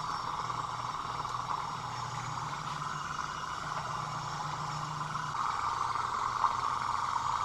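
Small homemade Stirling engine running steadily on the heat of its spirit lamp, giving an even mechanical whir from its pistons and flywheel.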